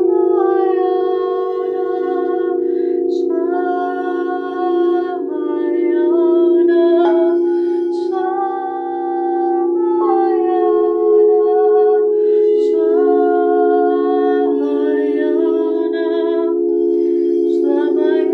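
A woman's voice chanting a mantra in long held notes that step between pitches every second or two, with short pauses between phrases, over a steady layered drone.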